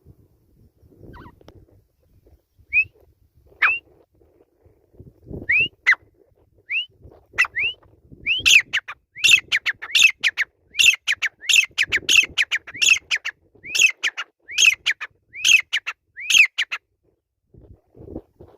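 Grey francolin calling: a few spaced, rising notes that come faster and faster, then break into a loud, even run of about two notes a second that stops short.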